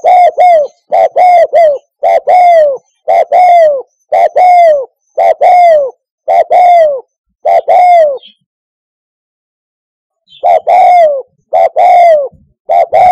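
Spotted dove cooing: short phrases of two or three falling coos, repeated about once a second, with a pause of about two seconds near the end before the calling resumes.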